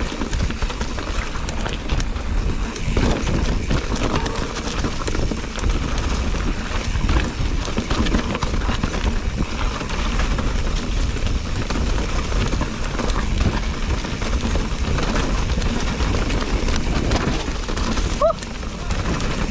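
Mountain bike riding fast down a rocky dirt trail: tyres crunching over dirt and stones, with a dense, steady clatter of the bike rattling over bumps. A short rising squeak near the end.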